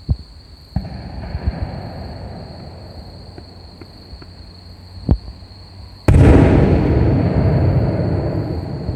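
Fireworks going off: a few booms and crackles, then a much louder sharp bang about six seconds in that rumbles away slowly.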